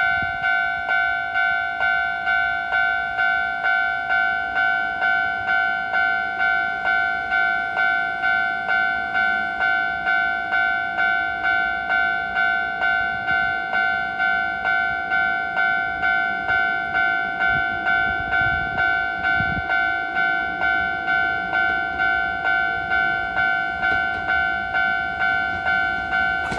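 Japanese railway level-crossing warning bell ringing steadily, about two strokes a second, with a pitched double tone. An approaching train's low rumble grows under it in the second half.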